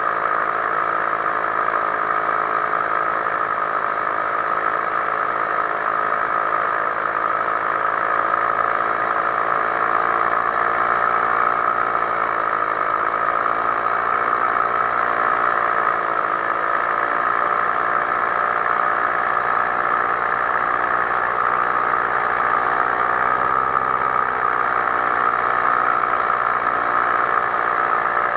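Powered paraglider's paramotor engine and propeller running steadily in flight. The pitch dips slightly a few times as the throttle eases and comes back.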